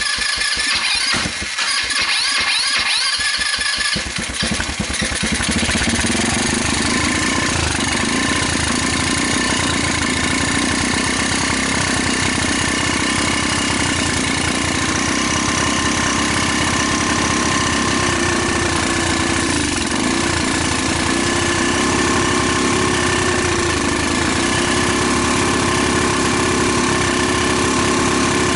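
Single-cylinder four-stroke GY6 150cc ATV engine with a newly fitted PZ27 carburetor, on choke. It runs unevenly for the first few seconds, then settles into steady running. It still does not rev out fully: the owner hears only a slight improvement, with the old problem still there.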